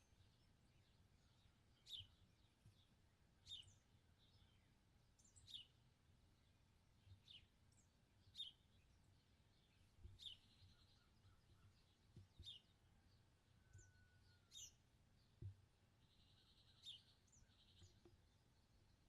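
Small birds chirping quietly: short, sharp, downward-sweeping chirps, one every one to two seconds, over faint background noise.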